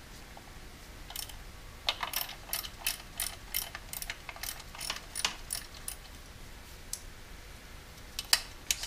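Ratcheting wrench clicking as it loosens a throttle body bolt: a run of quick even clicks, about four a second, for about four seconds from about two seconds in, then a few more near the end.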